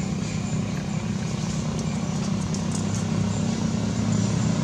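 An engine running steadily: a low drone that grows slightly louder toward the end, with a few faint high ticks in the middle.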